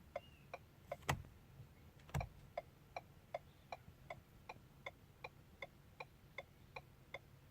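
Ford turn-signal indicator clicking at an even, normal rate of about two to three ticks a second, with no hyper flash now that the bulb-outage detection is disabled for the LED front turn signals. Two louder single clicks sound about one and two seconds in.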